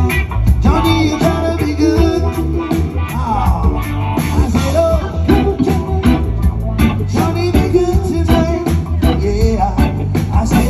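Live band playing an upbeat song with a steady beat: guitar and electric keyboard over drums, with a voice singing.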